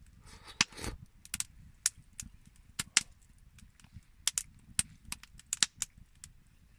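Wood campfire crackling: irregular sharp pops and snaps, with a brief denser crackle in the first second.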